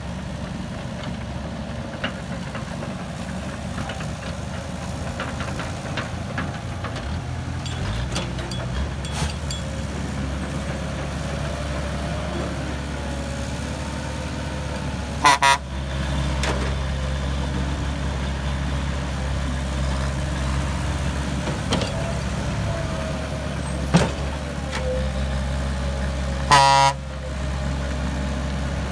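Heavy vehicle's diesel engine running steadily, its note shifting about eight seconds in, with a horn sounding a quick double honk about halfway and a longer honk near the end.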